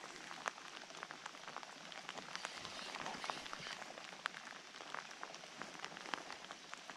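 Light rain pattering on the water and bankside grass: a faint, even hiss dotted with many small, irregular drop ticks.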